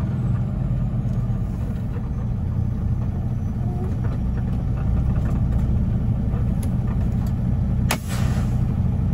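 A semi truck's diesel engine running steadily at low idle as the truck creeps to a stop. About eight seconds in comes one short, sharp hiss of air from the truck's air brakes.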